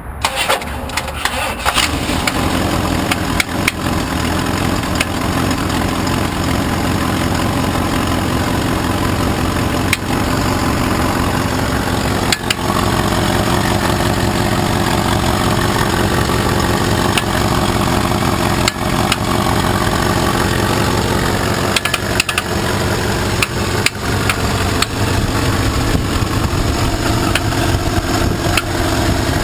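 Engine cranking and catching right at the start, then running at a steady idle with sharp knocks or ticks that come at irregular intervals: the inconsistent knocking/ticking the owner is trying to track down.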